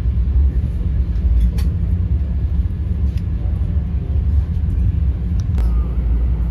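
Vande Bharat Express train running at speed: a steady low rumble with a few faint clicks.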